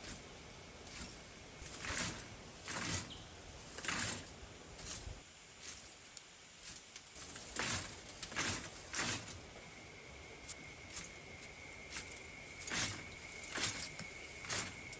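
Handfuls of charcoal clinking and rattling as they are dropped into the top of a clay smelting furnace, in short clatters every half second to second or so.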